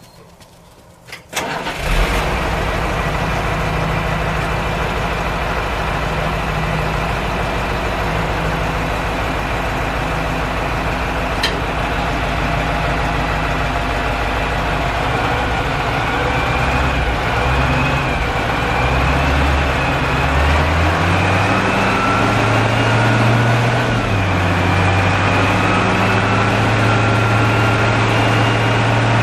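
Dump truck engine cranking and catching about a second and a half in, then idling steadily. In the second half the engine speeds up and a rising whine comes in as the hydraulic hoist lifts the dump bed.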